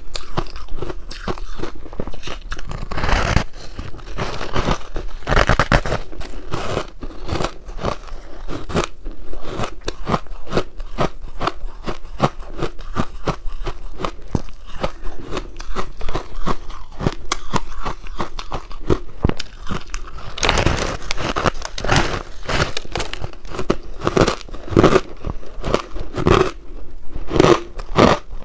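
Biting and chewing a slab of frozen pink ice cake: a steady run of crackling crunches as the ice breaks between the teeth, with louder bites about three seconds in, again around five seconds, and several more in the last third.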